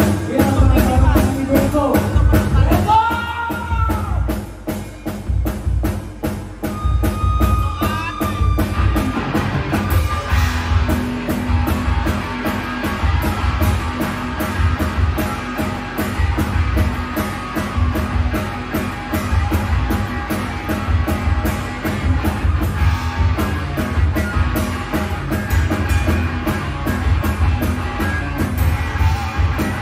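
Live rock band playing electric guitar, bass guitar and drum kit, with the drums keeping a steady beat. The band thins out and drops in level for a few seconds, then comes back in at full strength about ten seconds in.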